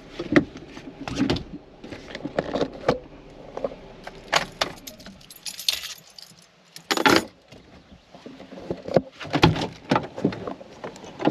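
Keys jangling among a string of clicks, knocks and rattles as things are handled inside a parked vehicle's cab, with the driver's door being opened near the end.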